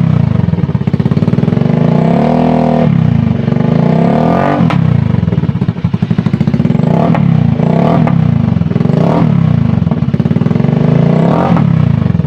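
Motor scooter's engine running loud through a newly fitted NLK open pipe (straight-through canister exhaust), idling between throttle blips. It is revved about six times: one longer rev about two seconds in, then short sharp blips.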